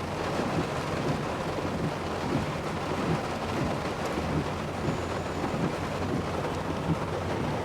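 Heavy rain falling steadily, with a low steady rumble underneath.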